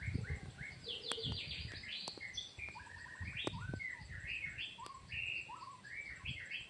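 Birdsong of many quick, stepped whistled notes overlapping, with a few sharp clicks and some low rustling near the start. A lure call is playing through a loudspeaker at a bird trap, and birds are answering.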